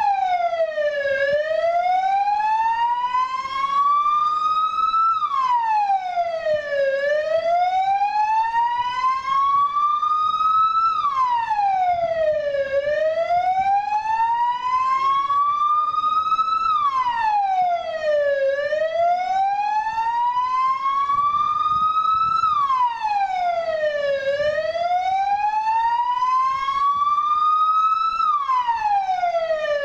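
Vehicle siren sounding a slow wail: each cycle rises in pitch for about four seconds, then drops quickly, repeating about five times.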